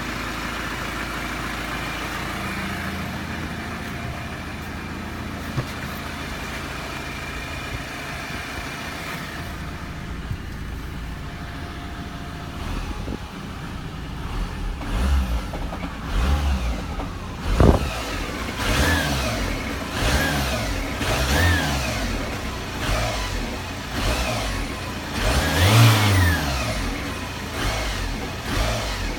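Audi A4 B7 2.0 TDI four-cylinder turbodiesel idling steadily, then revved in a series of short throttle blips. About two-thirds of the way through, a single sharp knock sounds from the engine area; the owner asks whether it is the flywheel.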